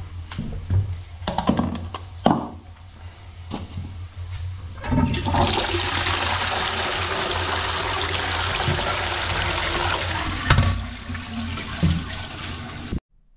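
A few knocks and clicks, then a toilet flushes about five seconds in: a steady rush of water for about five seconds that eases off as the bowl drains away freely. This is a test flush showing that the cleared toilet drain now runs.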